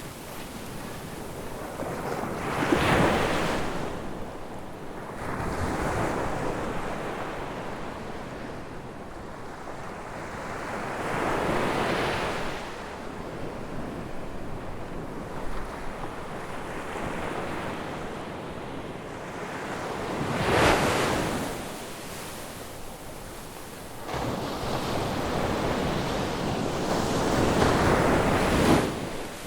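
Ocean waves breaking on a beach, each swell rising to a crash and washing back, with loud breakers about every eight to nine seconds.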